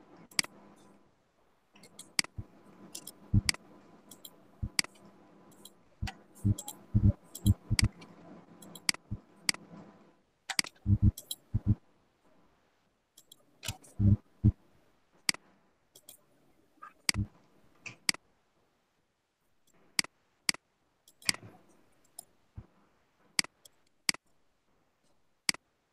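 Irregular sharp clicks of a computer mouse and keyboard as someone works at a computer, spread through the stretch, over a faint hum that fades out after about ten seconds.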